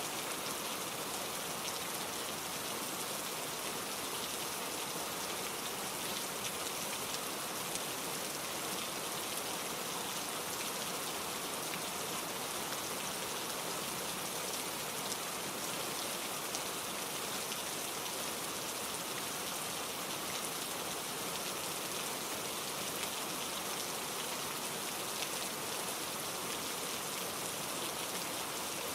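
Steady rain falling, an even hiss with fine patter that holds level throughout.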